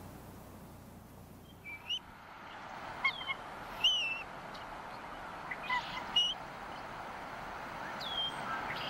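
Bald eagle giving a scattering of short, high-pitched chirping calls, single or paired, some bending up or down in pitch, over a faint steady hiss of wind.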